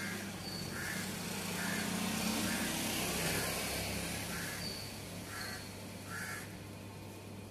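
Outdoor street ambience: a steady low hum of distant traffic, swelling a little then easing, with a bird calling in short repeated calls about once a second.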